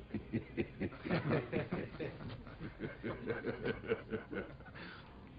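A man laughing: a long run of quick, repeated laughs, loudest in the first couple of seconds and dying away near the end.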